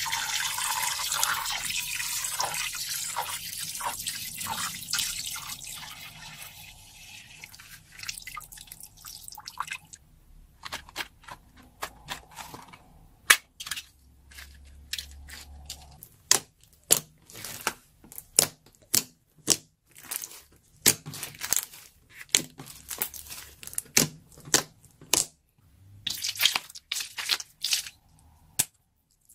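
Liquid slime pouring and splashing out of a cut balloon into a glass dish, a dense splashing hiss that fades over the first several seconds. Then a run of sharp, crisp pops and clicks, about one or two a second, as slime is pressed and worked by hand.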